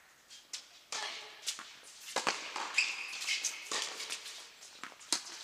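Tennis ball being hit and bouncing during a doubles point: about six sharp knocks at uneven intervals, with a short high squeak near the middle.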